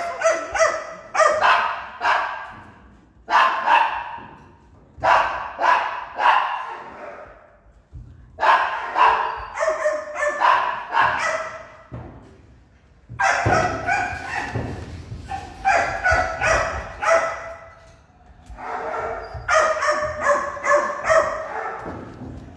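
Dogs barking in a shelter kennel room, in runs of quick barks separated by short pauses, echoing off the hard kennel walls and metal cages.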